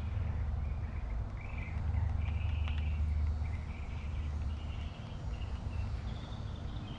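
Motor oil poured from a metal can through a plastic funnel into an engine's oil filler, heard as a low, steady rumble that swells about two seconds in and eases off after the middle. Faint bird chirps sound in the background.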